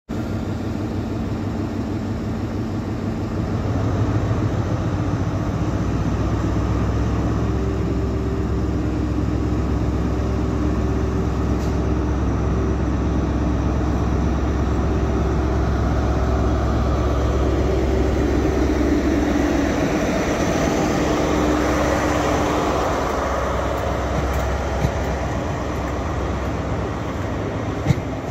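Diesel engine of a ScotRail HST's Class 43 power car (MTU 16V4000) running loudly at a steady low note, getting louder about four seconds in. Near the end, wheel clicks come from the coaches rolling past.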